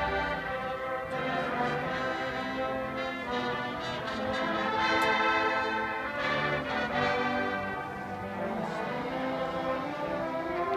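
High school marching band playing, brass section to the fore, with a few sharp percussion strokes around the middle.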